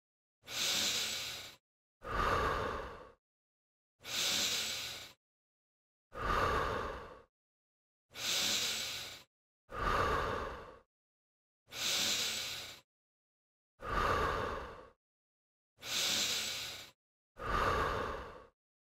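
A person breathing audibly in a slow, even rhythm, about ten breaths each lasting about a second with silence between them: a paced breathing guide for the exercise.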